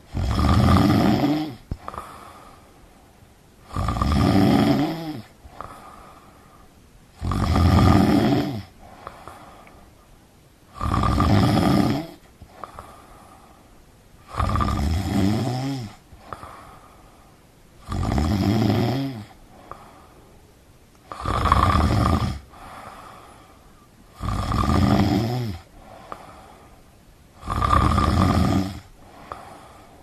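A person snoring steadily: nine loud snores evenly spaced about every three and a half seconds, each lasting about a second and a half, with a fainter breath between them.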